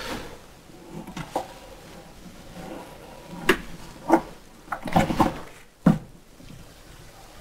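Threaded inserts being screwed into a solid walnut cabinet with a hex key: scattered taps, clicks and knocks of the metal key and hands against the wood, louder and more frequent in the second half.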